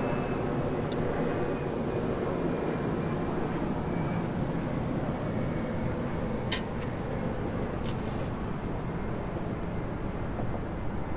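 Steady rumble of road traffic on the causeway bridge, with two short sharp clicks about six and a half and eight seconds in.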